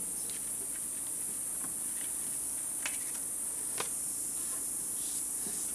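Steady high-pitched insect chorus droning without a break, with a few faint clicks and rustles of handling scattered through it.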